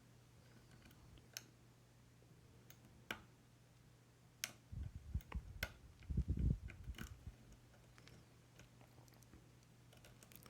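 Faint, scattered clicks of a hook pick and tension tool working the pins of an older Yale 500 lock, with a few dull low knocks of handling between about five and seven seconds in.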